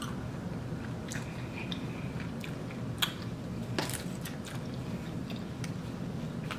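Close-miked eating of lobster: soft chewing and small wet mouth sounds with a few sharp clicks, the clearest about three and four seconds in, over a steady low hum.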